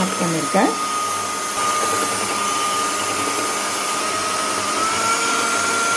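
Electric hand mixer running steadily, its beaters whipping eggs and powdered sugar for sponge cake batter. The motor gives a steady whine that climbs a little in pitch about five seconds in as the speed is raised.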